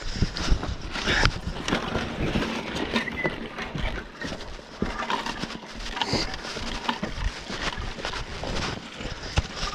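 Saddled horses walking on a dry dirt track: uneven hoof falls, mixed with irregular knocks and rustles close by.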